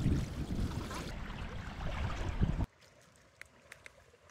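Wind buffeting the microphone, an uneven low rushing noise, cuts off abruptly about two and a half seconds in. A quiet stretch with faint light ticks follows.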